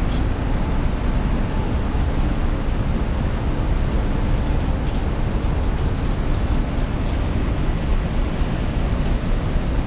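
Steady low rumble and rush of a ferry under way, with wind buffeting the microphone.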